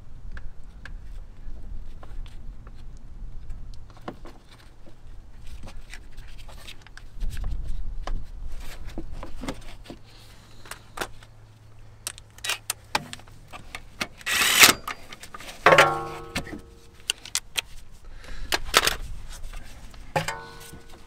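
Hand work on a car's rear brake: scattered light clicks and taps of tools and parts being handled, a brief hiss about fourteen seconds in, then two metal clanks that ring on briefly, the second near the end.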